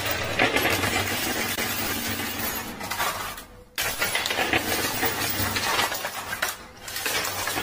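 Poker chips and coins on a coin pusher machine clattering and clinking, in a dense continuous jangle that drops out briefly about halfway through and again near the end.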